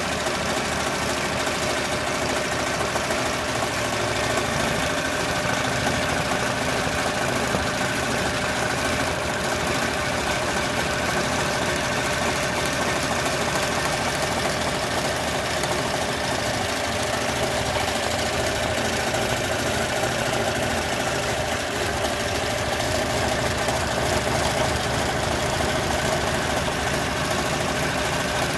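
Multi-needle machine embroidery machine running steadily, its needles stitching at a fast even rhythm while it sews a satin-stitch border motif.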